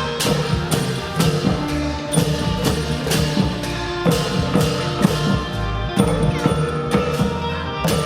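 Isan pong lang ensemble playing: the wooden log xylophone with percussion keeping a steady beat of about three strokes a second over sustained low notes.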